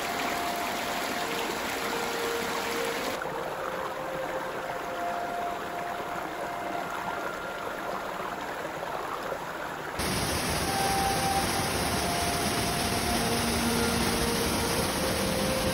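Rushing water of a forest creek and small waterfalls, a steady hiss that shifts abruptly about three seconds in and again about ten seconds in, where it becomes louder and fuller.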